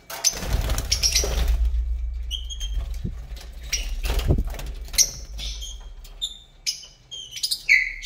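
Lovebirds in a wire cage: a burst of wing flapping and fluttering for the first two seconds or so, then short, high chirps one after another, coming thicker toward the end.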